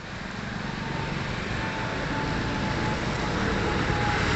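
Jet engine noise from an Emirates Boeing 777-300ER climbing out after takeoff: a steady rushing sound growing gradually louder, with a faint thin whine drifting slightly down in pitch.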